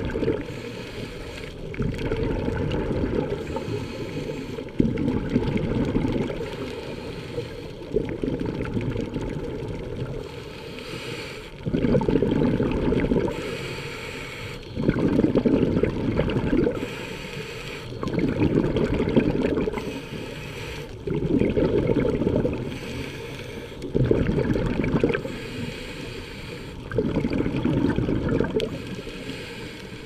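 Scuba diver breathing through a regulator underwater: a bubbling rush of exhaled air lasting a second or two, coming back about every three seconds, with quieter inhalations between.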